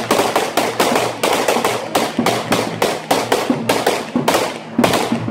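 A string of firecrackers going off: a quick, unbroken run of sharp cracks, about six a second, each with a short echo.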